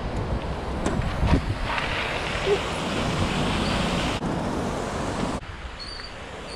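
Wind buffeting the microphone over the rolling noise of a trial bike's tyres on concrete, with two sharp knocks about a second in. The noise changes abruptly twice in the second half.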